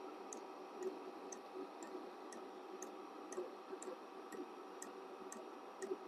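Diesel heater running on its lowest setting: the fuel dosing pump ticks evenly about twice a second over the steady whir of the combustion fan and burner.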